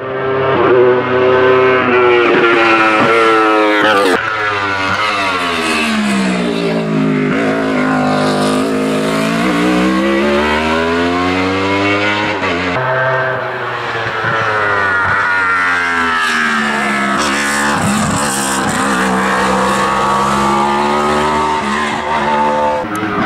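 Wolf Thunder GB08 sport prototype's racing engine at high revs, its pitch sweeping down and back up several times as it slows for bends and accelerates out of them, with abrupt drops about 4 and 13 seconds in.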